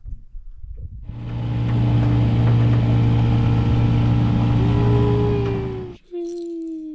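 An engine running steadily at an even speed, which stops abruptly about six seconds in, followed by a short falling whine.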